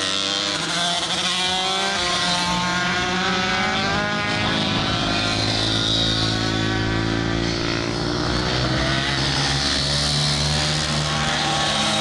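Several small racing motorcycles (pitbikes and minibikes) running hard through the corners, their engines overlapping, each rising and falling in pitch as the riders accelerate and back off.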